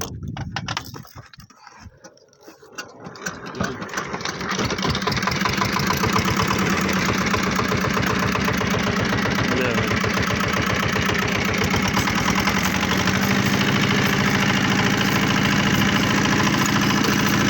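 Small engine being started: a few irregular chuffs at first, then it catches and runs steadily, settling into a lower, even idle near the end.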